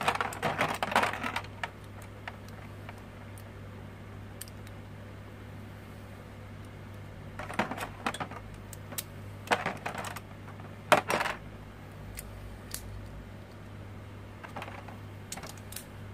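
Metal and plastic Infinity Nado spinning-top parts clicking and clattering in short bursts as the tops are taken apart and their attack rings swapped, with a steady low hum underneath.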